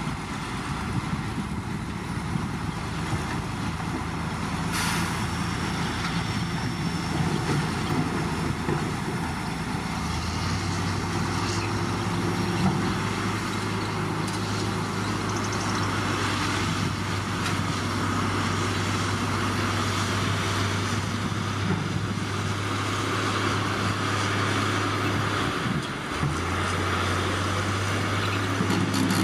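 Heavy diesel engine of earthmoving machinery running steadily. Its note steps up about a third of the way in, dips briefly near the end and comes back.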